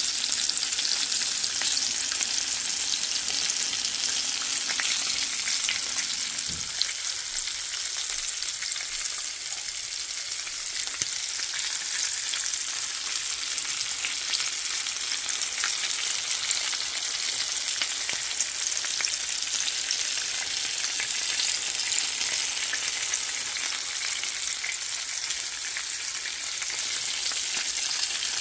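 Chicken frying in hot oil: a steady, dense crackling sizzle with fine pops throughout.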